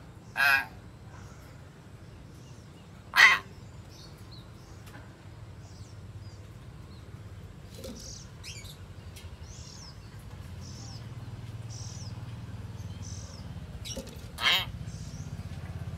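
Hill myna giving three loud, short, harsh calls: one right at the start, one about three seconds in, and one near the end. Faint high chirps from small birds sound in between.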